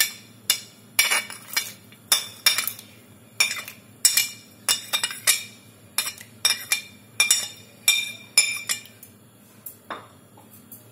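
A metal spoon clinking and scraping against a plate, sweeping chopped carrots and beans into a pan of water: sharp clinks about twice a second, stopping about nine seconds in.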